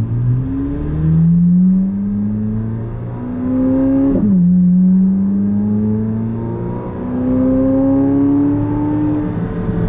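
Chevrolet C8 Corvette Z06's flat-plane-crank V8 accelerating, its note climbing in pitch, dropping sharply about four seconds in at a gear change, then climbing again.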